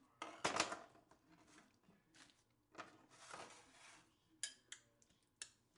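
Faint kitchen handling noises: a spoon scraping and knocking against a bowl and dishes. There are two brief scrapes, about half a second in and about three seconds in, then a few light clicks near the end.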